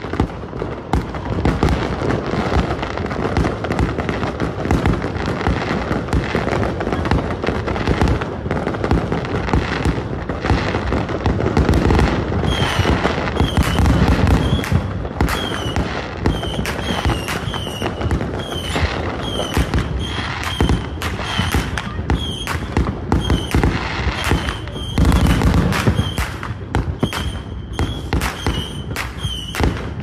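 Neighbourhood fireworks going off in a dense, continuous crackle of pops and bangs, with heavier booms of aerial shells about 14 and 25 seconds in. From about halfway in, a short high falling chirp repeats more than once a second.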